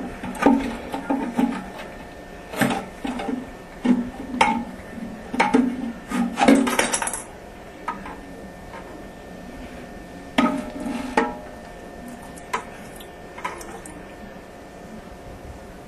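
Irregular knocks and clatter of the toilet's ball cock fill valve being worked loose and lifted out of the tank, busiest through the first ten seconds or so, then only a few light taps.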